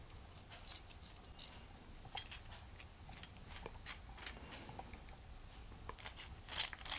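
Dent puller kit parts being handled and fitted together: faint, scattered small clicks and taps, with a louder cluster of clicks near the end.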